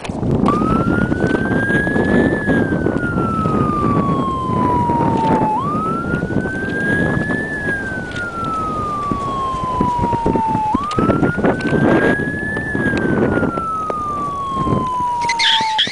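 A police siren wailing in three slow cycles, each rising quickly in pitch and then falling slowly, over a steady rushing noise of wind on the microphone.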